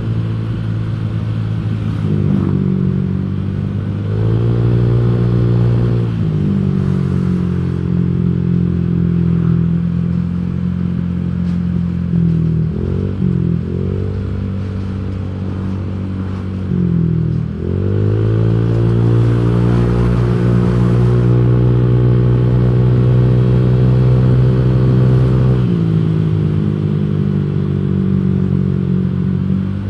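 Honda Vario automatic scooter's single-cylinder engine running on the move, its pitch dropping and climbing again several times as the throttle is eased and opened, then holding steady for a long stretch in the second half.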